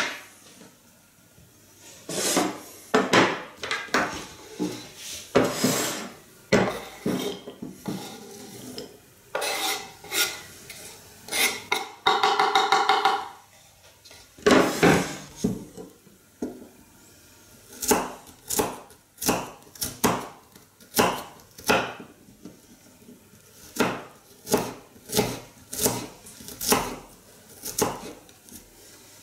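Kitchen knife chopping onion and then garlic on a wooden cutting board, in irregular knocks. Around the middle comes a longer rasping scrape as the chopped onion is scraped off the board into a ceramic bowl, and later the knife knocks settle into a quicker, regular chopping of about one to two cuts a second.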